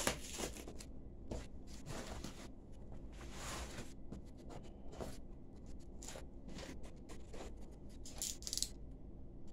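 Cardboard box with paper packing being handled and turned over: irregular rustling and scraping of cardboard and paper, with a louder rustle about eight and a half seconds in.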